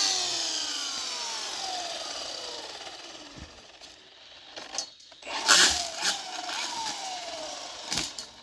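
Milwaukee FUEL battery-powered string trimmer run in short bursts: its electric motor whines as it spins up, then falls in pitch as it coasts down over a few seconds. This happens twice, each time with a brief harsh burst as it spins up.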